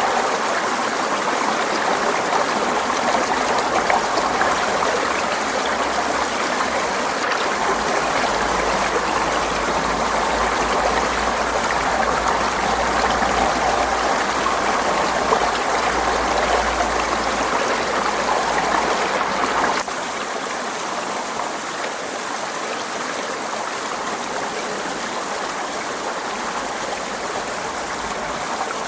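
Forest stream flowing steadily over rocks, a continuous rushing and trickling of water. About two-thirds of the way through it turns abruptly a little quieter.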